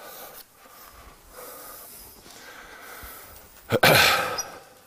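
Faint room noise, then about four seconds in a man's short, loud breath through the nose, like a snort.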